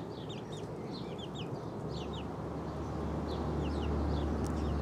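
Young chicks peeping: short, high, downward-sliding chirps in quick runs. A low, steady rumble comes in about two seconds in.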